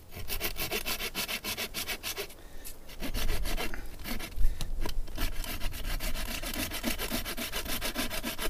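A hand saw cutting through a shelter pole, with rapid, even back-and-forth strokes and a brief pause about two and a half seconds in.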